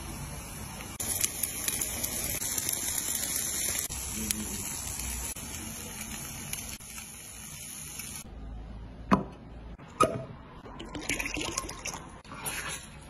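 Pieces of snapping turtle sizzling on an electric grill, a steady hiss with small pops that stops suddenly about eight seconds in. Then come two sharp knocks, and liquor is poured into a shot glass near the end.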